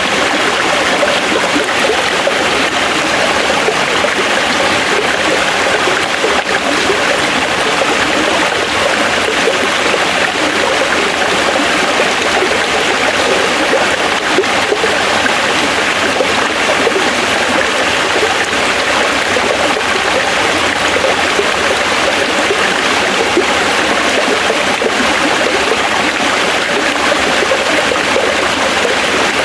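Forest stream flowing over rocks, a steady, unbroken rush of water with splashing and trickling.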